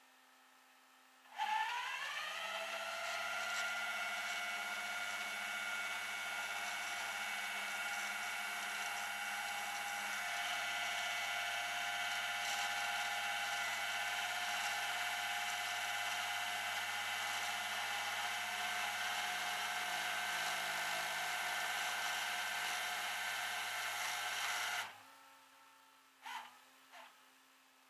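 Electric hand dryer starting up with a whine that rises in pitch and settles, then running steadily for about twenty seconds before cutting off suddenly. Two short soft knocks follow near the end.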